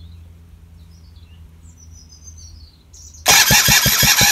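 Birds chirping faintly, then about three seconds in a GY6-type four-stroke scooter engine is suddenly cranked by its electric starter motor. The cranking is loud, with a regular beat of about five to six pulses a second, and the engine does not run, because the spark plug is out of the head for a spark test.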